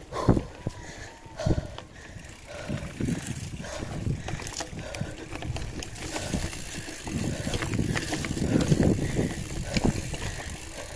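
Wind buffeting the microphone of a moving rider's camera in uneven gusts, with a few sharp knocks and rattles from the ride, loudest about two thirds of the way through.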